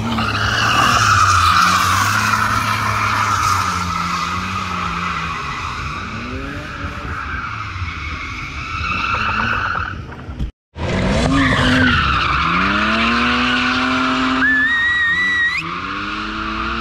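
BMW drift car sliding on concrete, its tyres squealing continuously as the engine revs rise and fall. The sound cuts out for a moment about ten seconds in, then the squeal and the climbing engine revs return.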